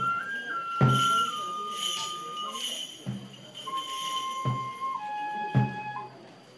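Shinto kagura music: a flute holds long notes that step down in pitch, drum beats fall about once a second, and kagura suzu bell trees shaken by shrine maidens jingle over them.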